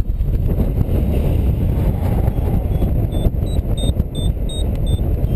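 Airflow rushing over the microphone of a paraglider in flight. From about halfway through, a variometer beeps quickly, about seven short high beeps at roughly three a second, the tone it gives when the glider is climbing in a thermal.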